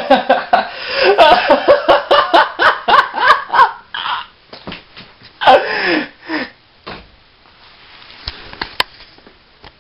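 A young man laughing hard, in rapid bursts that slide up and down in pitch for about four seconds. After a short break there is one more burst, and then it dies away.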